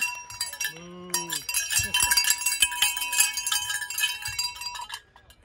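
Metallic ringing and jingling, many small ringing tones over dense clicks, thickening about two seconds in and stopping sharply near the end. A short, low, falling tone sounds about a second in.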